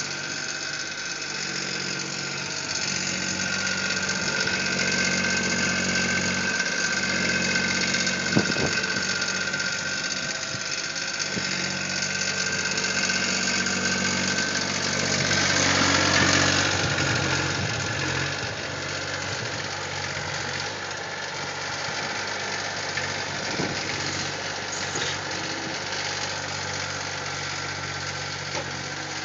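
Case skid steer's diesel engine running steadily, with a high steady whine over it. About halfway through, a louder rushing noise swells and fades, and the whine drops away.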